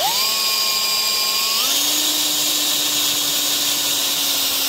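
DeWalt cordless drill boring a hole down through a wooden wall top plate. The motor whine spins up quickly, runs steady, and steps up slightly in pitch about a second and a half in.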